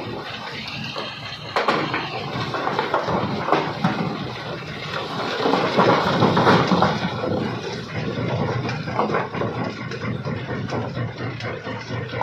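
Large rocks tumbling and clattering out of a tipping dump truck into a jaw crusher's steel feed hopper, a dense run of knocks and scraping that steps up in loudness a second and a half in and is loudest around the middle.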